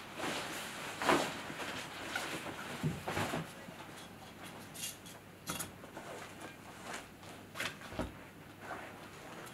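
Nylon jacket rustling as it is handled and laid over an armchair, with a few soft knocks and clicks scattered through.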